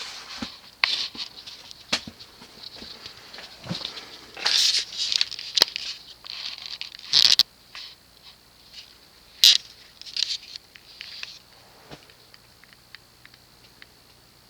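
Hunter Low Profile ceiling fan being switched on at low speed and starting up: irregular clicks and rattles for about the first eleven seconds. After that, a faint steady hum with light ticks.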